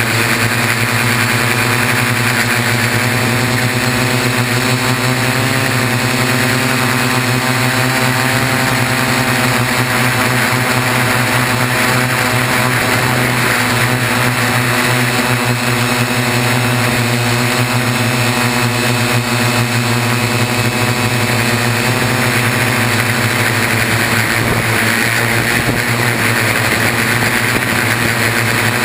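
A Y6 hexacopter's six electric motors and propellers whirring steadily in flight, heard close up from the frame. The pitch wavers slightly as the throttle changes.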